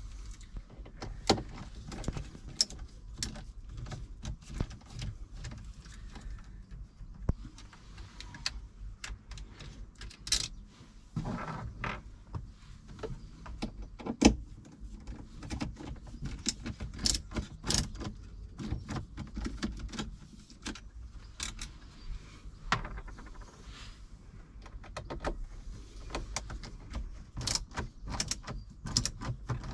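Scattered sharp metallic clicks and ticks of a hand screwdriver with a bit adapter undoing the four hex bolts that hold a car head unit in the dashboard, along with small knocks of tool and hand on the dash plastic; one louder knock comes about halfway through.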